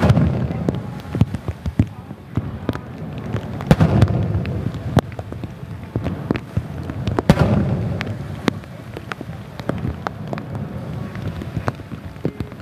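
Aerial fireworks shells bursting: three big booms about three and a half seconds apart, each trailing off in a low rumble, among many sharp crackles and pops.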